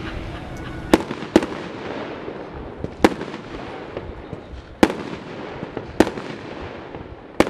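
Pyro King 'Party Animal' 200-gram, 12-shot firework cake firing: six sharp bangs, irregularly spaced and up to about two seconds apart, with fainter pops between.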